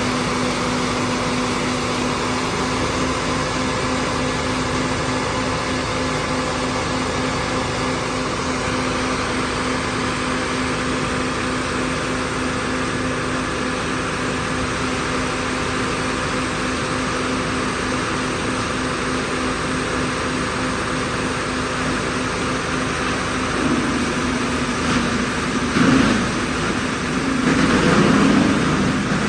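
Crawler-mounted diesel wood chipper running at a steady speed, with a constant hum. In the last few seconds it grows louder in uneven surges.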